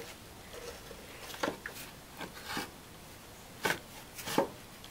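Power steering pump of a Chevrolet Corsica 3.1L being worked back into its engine mounting bracket by hand: scattered light knocks and scrapes, with two sharper clunks near the end.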